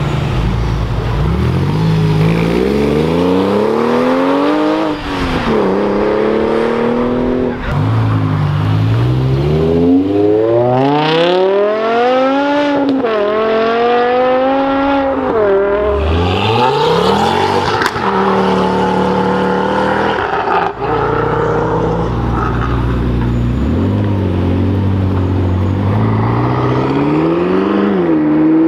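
Performance car engines accelerating hard as the cars drive off one after another. Each run is a rising pitch that drops sharply at every upshift, repeated several times.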